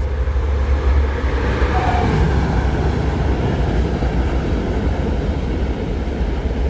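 A train passing: a loud, steady rumble with an even rush of noise.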